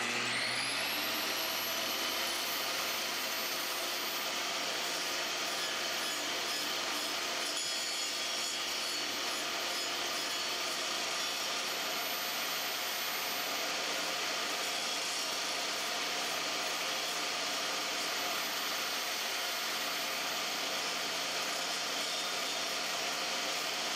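Table saw starting up, its whine rising to speed within about the first second, then running steadily while the blade grinds a groove into the edge of a plywood pulley disc turned slowly against it by hand.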